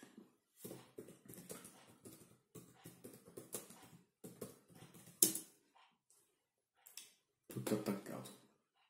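A man's low, quiet muttering under his breath in short broken bursts, with one sharp click about five seconds in.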